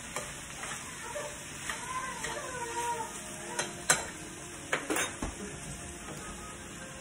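Chicken and mixed vegetables sizzling in a frying pan as they are stirred with a spoon. A few sharp clicks come about four to five seconds in.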